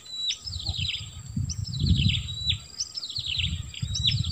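A songbird repeating the same short phrase about every second and a bit: a high note followed by a quick run of falling notes. Underneath are a steady high tone and an uneven low rumble.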